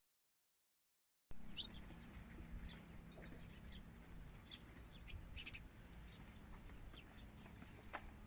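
Dead silence for about the first second, then faint, scattered short high chirps of small birds over a faint steady low hum.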